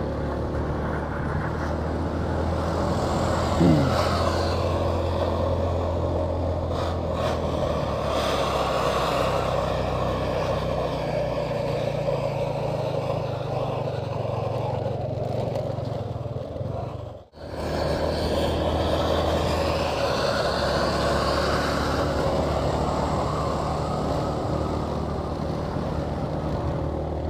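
Motorcycle engine running at a steady speed while riding, under steady wind and road noise. The sound drops out sharply for a moment about seventeen seconds in.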